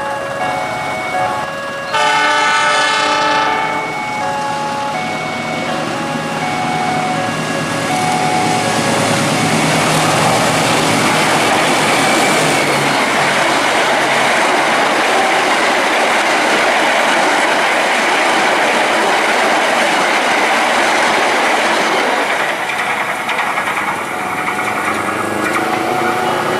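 A level-crossing warning bell chimes in a repeating pattern. About two seconds in, a train horn sounds loudly for about two seconds. Then the KA Argo Cheribon passenger train passes at speed, its wheels clattering over the rail joints, with the noise easing off near the end.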